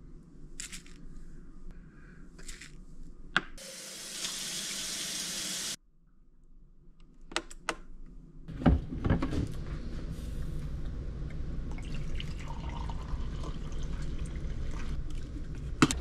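Water pouring for about two seconds and cutting off abruptly, then a few clicks and a steady low rumble with scattered knocks from a Mr. Coffee drip coffee maker as it heats and brews.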